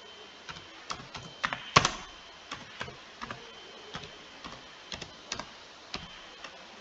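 Typing on a computer keyboard: slow, irregular keystrokes, about two a second, one of them louder a little under two seconds in.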